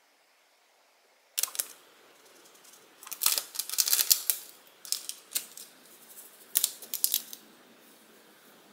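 Clear plastic packet of bonito flakes crinkling as a hand digs into it and pulls the flakes out, in several short spells of rustling. A couple of sharp clicks come first, about a second and a half in.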